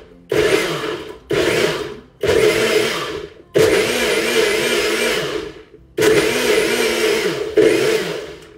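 Bullet-style personal blender pulsed in a series of short bursts, each starting abruptly and winding down as the motor spins down, with one longer run in the middle, as it crushes ice cubes and frozen berries into a smoothie.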